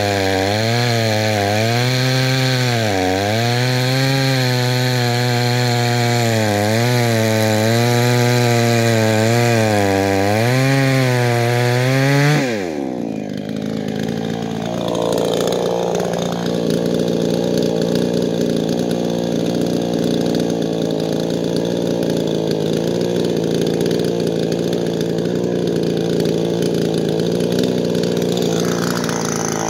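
A 52cc two-stroke chainsaw with a 22-inch bar cuts through a large log at full throttle, its pitch dipping and recovering again and again as the chain bites under load. About twelve seconds in, the sound changes abruptly and the saw runs on steadier and a little quieter.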